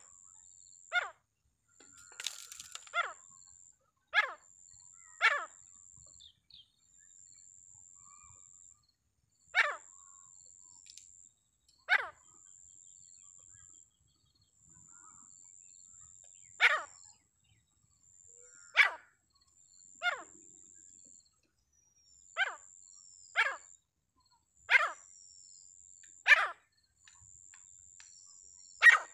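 A francolin (ram teetar) giving short, sharp single calls, about fourteen of them, spaced irregularly one to four seconds apart. A faint high, steady whine comes and goes behind the calls.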